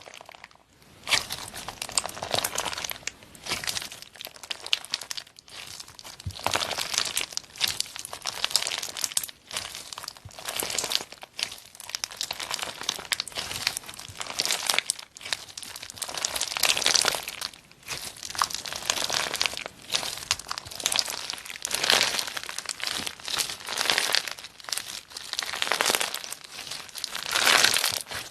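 Slime being squeezed and pressed by hand, crackling and crinkling in repeated bursts every second or two.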